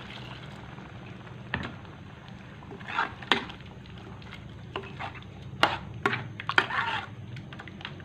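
Metal ladle knocking and scraping against a wok as chicken is stirred in coconut milk: a string of sharp clacks and short scrapes from about one and a half seconds in, over a steady low hum.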